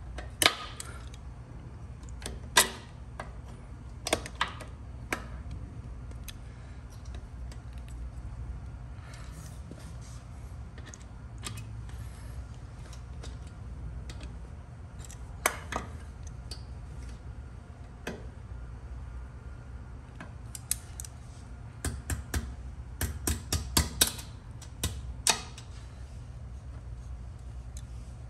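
Metal hand tools clicking and scraping on a motorcycle's rear axle nut while a cotter pin is worked out of it. The clicks are sharp and scattered, with a quick run of them near the end, over a steady low hum.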